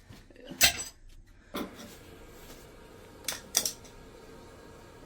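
A few sharp clatters of hard objects being handled and set down: the loudest about half a second in, another at about a second and a half, and two close together at about three and a half seconds.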